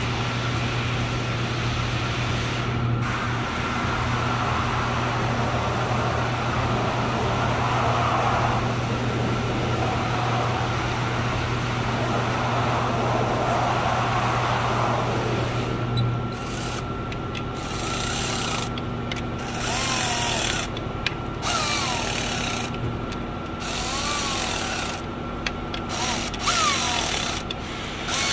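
Steady machine hum that drops away about two-thirds of the way in, then short squeaks and rubbing from hand work on the engine.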